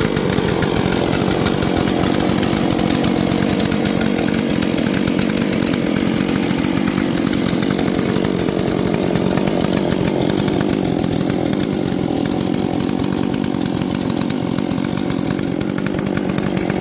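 Ported and decked Holzfforma G466 70cc-class chainsaw running steadily at a loud, even pitch.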